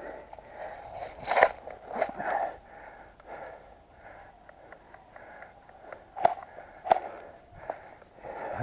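A handful of sharp cracks over a low rustle, the loudest about one and a half seconds in, with others near two, six, seven and almost eight seconds in.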